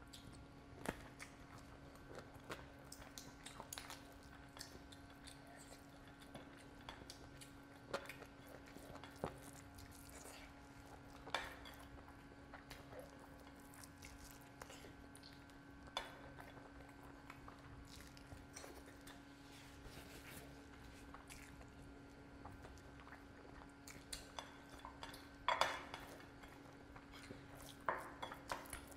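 Close-miked eating by hand: rice and curry gravy squished between the fingers on a plate, chewing, and scattered sharp clicks and clinks against the plate, the loudest cluster about 25 seconds in. A faint steady hum runs underneath.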